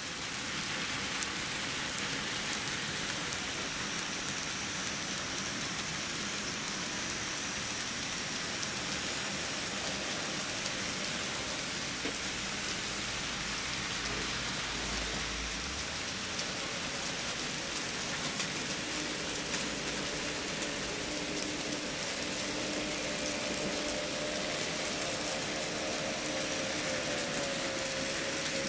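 Steady, even hiss like falling rain, with faint pitched tones joining in over the last several seconds.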